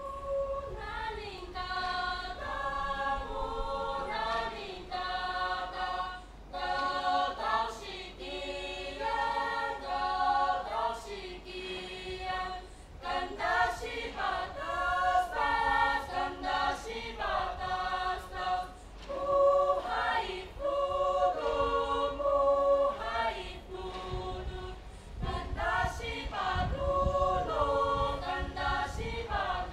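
A group of boys and girls singing a traditional song in their indigenous mother tongue, unaccompanied and in several parts at once, phrase by phrase with short breaths between. A few sharp knocks come through now and then.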